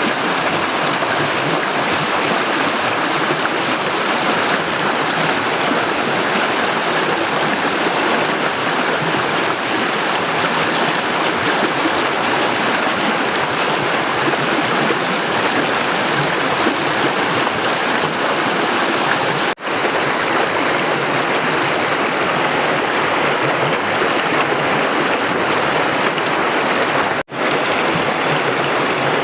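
Mountain river water rushing and splashing in a steady, loud flow at the Ahansal river's headwaters. The sound breaks off for an instant twice in the last third.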